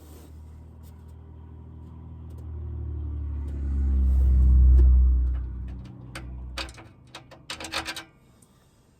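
A motor vehicle's engine rumble swells to a peak about halfway through and fades away, as when a vehicle drives past. Near the end come a quick series of sharp knocks and clatters.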